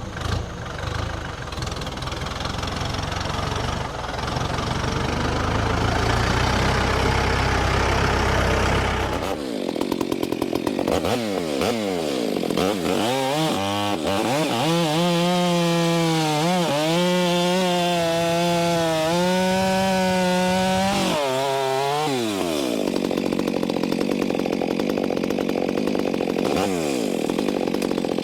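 A low engine rumble, then a Stihl MS 462 C chainsaw taking over about nine seconds in: it revs up and down a few times, is held at a steady high pitch for about ten seconds, then drops back and keeps running lower.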